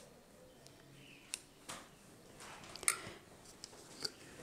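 A few soft clicks and taps of a metal spoon and a thin plastic dessert pot being handled, the loudest about three seconds in, over a quiet room.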